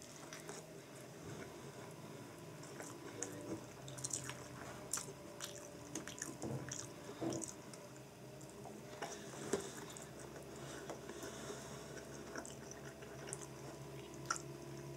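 Faint close-up eating sounds of a person chewing a rice ball, with small wet mouth noises and scattered light clicks of chopsticks on a plate.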